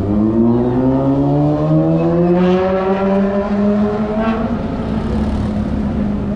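A road vehicle's engine accelerating, its pitch rising steadily for about four seconds and then holding level, over steady street traffic noise.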